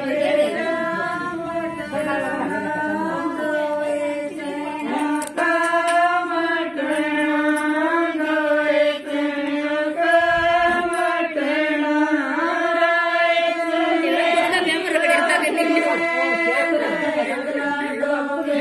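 Group of women singing a Haryanvi jakdi folk song together, the song of the baan pre-wedding ritual, in long held melodic lines without a beat.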